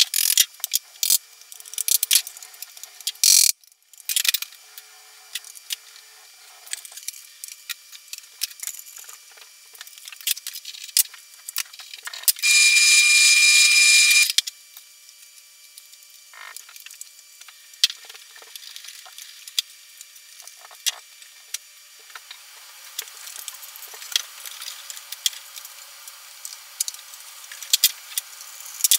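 Scattered clicks and taps of a plastic plate and small tools being handled on a workbench. About twelve seconds in comes a two-second burst of a bench drill press running and drilling through the thin plastic plate: a steady whine with a bright hiss, stopping suddenly.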